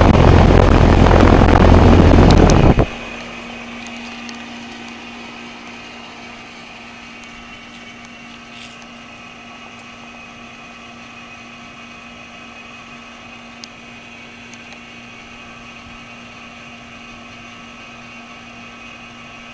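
A loud rush of air for about the first three seconds that cuts off suddenly, then a Goodman or Nordyne HVAC unit running with a steady hum and a constant tone.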